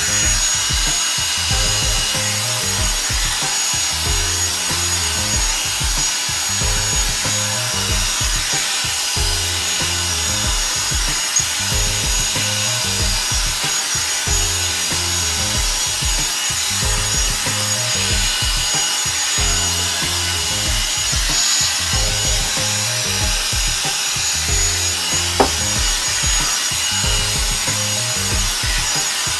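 Revlon One-Step hair dryer brush running with a steady, loud hiss while it is worked through hair.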